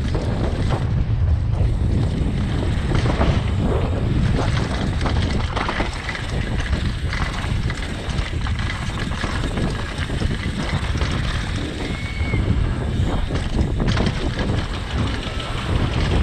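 Downhill mountain bike rolling fast over a dirt trail: steady tyre rumble with wind buffeting the camera microphone, and frequent short knocks and rattles as the bike hits bumps and roots.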